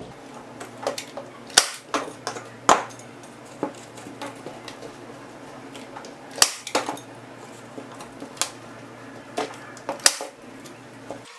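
A chrome hand-squeeze staple gun firing staples through primed linen into a wooden stretcher frame: a series of sharp snaps at irregular intervals, some loud and some fainter.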